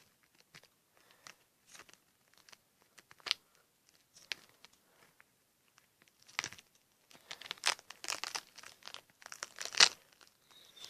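Scissors snipping and a balloon-skinned squishy toy being cut and torn open, with crinkling and crunching handling noise. Scattered small clicks at first, then denser crinkling and tearing from about six seconds in.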